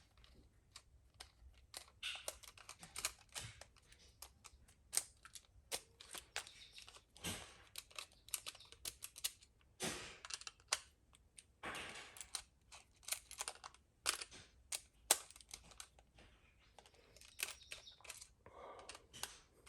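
Irregular small clicks, taps and brief scrapes of hands handling a new electrical outlet and its wires.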